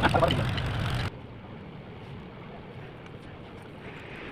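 An engine running with voices over it, cut off abruptly about a second in, leaving a faint steady hum.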